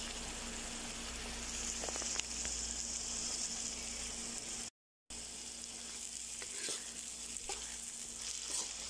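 Ground chilli, tomato, shallot and garlic paste sizzling in hot oil in a wok, with a steady hiss and a few light scrapes from the stirring spoon. The sound cuts out completely for a moment just before halfway, then the sizzling resumes.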